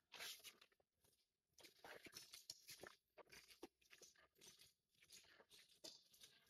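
Faint, irregular crackling and rustling, a quick run of small clicks.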